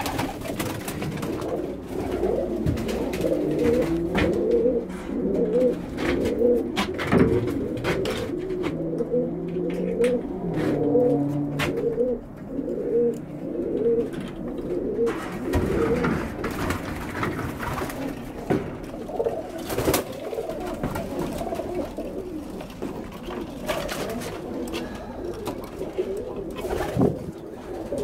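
Many tippler pigeons cooing together in overlapping, repeated coos, with scattered sharp clicks among them.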